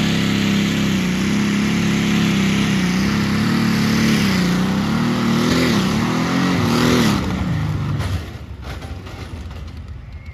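Pulling tractor's engine at full throttle, dragging a weight-transfer sled, its pitch wavering up and down. About seven seconds in the throttle is cut and the engine note falls away, leaving it much quieter.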